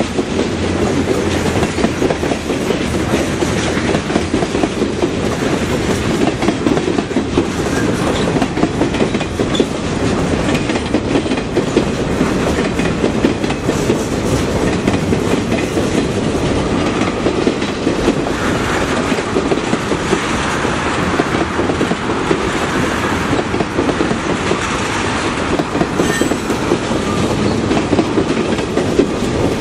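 Norfolk Southern freight train's covered hoppers, boxcars and tank cars rolling past close by, with a steady, unbroken rumble and a stream of wheel clicks over the rails.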